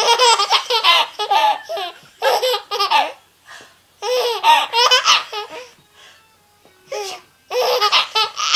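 A baby laughing hard in four bouts of high-pitched giggles and belly laughs, with short pauses for breath between them.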